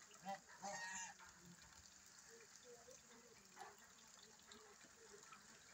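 Faint rain falling on a puddled yard, with one brief pitched call just under a second in.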